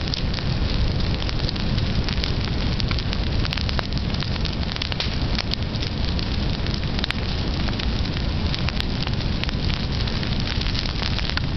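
Brush and tree fire burning, a steady rushing noise with many sharp crackles and pops from the burning wood and needles.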